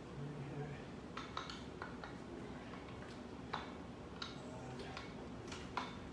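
A pair of dumbbells clinking against each other during dumbbell deadlift reps: a handful of short, sharp metallic clinks at irregular intervals.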